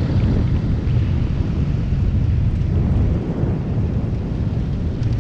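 Wind buffeting a moving microphone: a steady low rumble.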